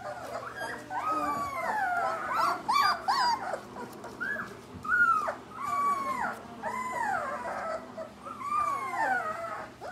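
Eighteen-day-old Gerberian Shepsky (German shepherd–husky mix) puppies whimpering and whining. It is a string of about a dozen high cries, each one rising briefly and then falling in pitch, coming one or two a second.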